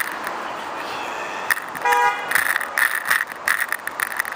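Bicycle basket and clip-on camera stand rattling and knocking over a rough road surface, the shaking the rider mentions, with a dense run of sharp knocks in the second half. A vehicle horn gives a short toot about two seconds in.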